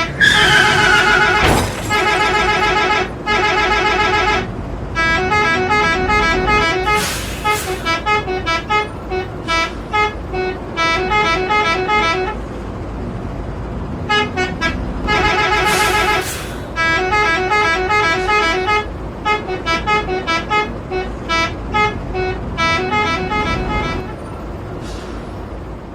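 Telolet bus horn playing quick multi-note tooting melodies. The phrases run for several seconds at a time, with short breaks between them.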